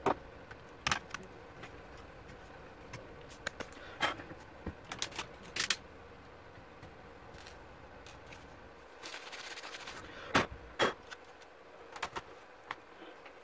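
Scattered light clicks and taps of plastic laptop parts and cables being handled during reassembly, with a short scrape about nine seconds in and two sharper knocks just after, as the palmrest cover is set onto the base.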